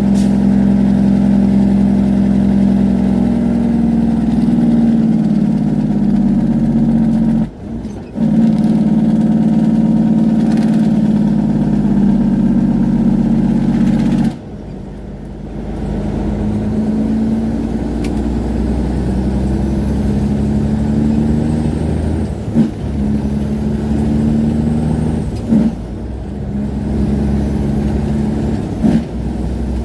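Diesel semi-truck's engine brake running loud and steady on a long downhill grade. It cuts out briefly about a quarter of the way in, drops off again near the middle, and comes back a little quieter, with short dips near the end.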